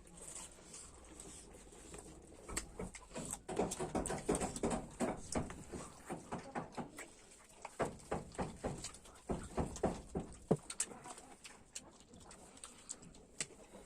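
A person chewing and smacking with the mouth open while eating, with wet clicks and smacks coming in quick irregular runs.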